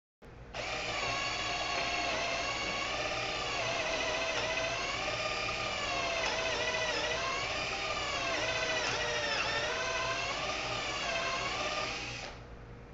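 Cordless drill running at its highest speed, boring a pocket hole in wood through a Kreg jig with the stepped drill bit. The whine's pitch dips and recovers several times as the bit bites and is eased back to clear the sawdust, and winds down near the end.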